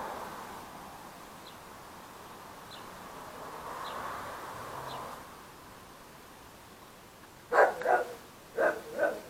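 Dog barking close to the microphone: four sharp barks in two quick pairs near the end, after a stretch of soft whooshing noise with faint high chirps.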